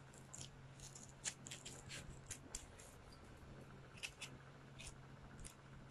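Faint rustling and light scraping of half-finger motorcycle riding gloves being pulled onto the hands and adjusted, with scattered soft clicks throughout.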